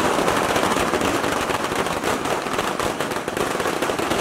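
A string of firecrackers going off in a rapid, unbroken crackle.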